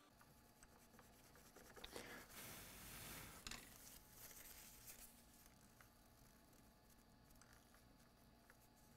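Faint rubbing and scratching on a circuit board as it is cleaned, loudest between about two and three and a half seconds in, with a few light clicks.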